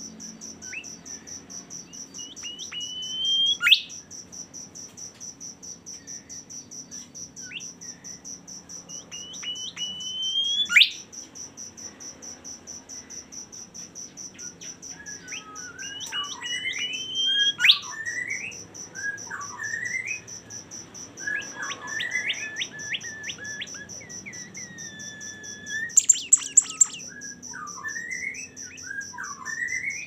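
A caged bimoli songbird singing: whistled notes that glide upward, building to loud rising sweeps about four and eleven seconds in. A busier, more varied run of chirps and whistles follows in the second half. Throughout, a steady, rapidly pulsing high insect trill runs underneath.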